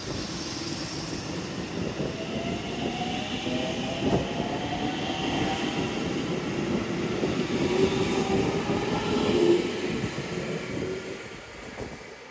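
JR Central 313 series electric train pulling out of the station. The motor whine rises steadily in pitch as it accelerates over wheel-on-rail running noise. The sound fades over the last couple of seconds as the train draws away.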